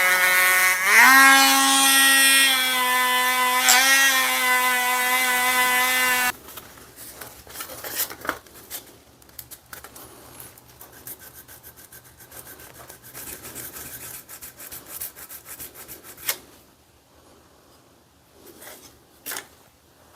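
Dremel rotary tool with a surface-conditioning wheel running against a screwdriver, a steady whine that steps up in pitch about a second in and cuts off about six seconds in. Afterwards only faint rubbing and light clicks of handling.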